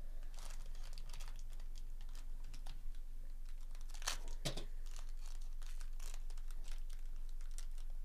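A foil-wrapped Topps Tier One baseball card pack crinkling in gloved hands and being torn open at its crimped seal. Irregular crackles run throughout, with two louder rips about four seconds in.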